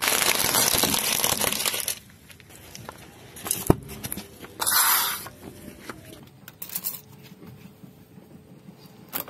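Car tyre rolling over and crushing small plastic objects: about two seconds of dense crackling and crunching as a heap of bead-filled plastic candy tubes gives way, then a single sharp snap, another short burst of crackling, and a few scattered small clicks.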